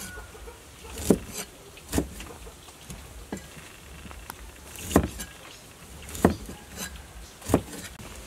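Knife cutting limes on a wooden chopping block, each stroke ending in a sharp knock of the blade on the board. There are five loud knocks at uneven intervals of about one to one and a half seconds, with a few fainter ones between.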